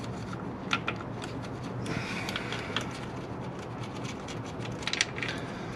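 Scattered light metallic clicks and taps of a wrench working on a car battery terminal clamp, over a steady low hum.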